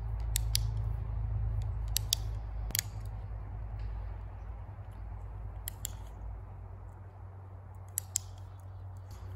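Sharp clicks, most of them in close pairs, five times over a few seconds, above a low steady rumble that fades after the first few seconds.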